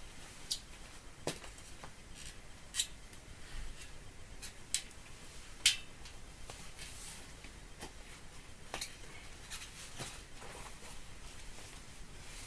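Irregular light clicks and taps, with soft rubbing between them, from hands working a bicycle wheel, tyre and new inner tube; one sharper click a little before halfway is the loudest.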